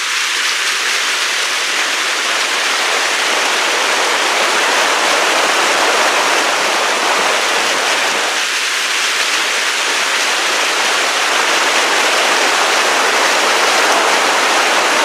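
A shallow river rushing over boulders in rapids, a steady loud rush of water.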